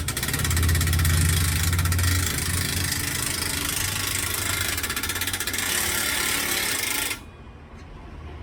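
Impact wrench hammering steadily while tightening an exhaust clamp nut, cutting off abruptly about seven seconds in.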